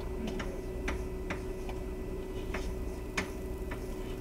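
Irregular light clicks, about seven in four seconds and unevenly spaced, over a steady low hum.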